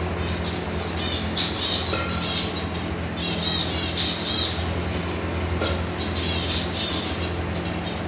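Finches in a colony calling: groups of quick, high chirps every second or two, over a steady low hum.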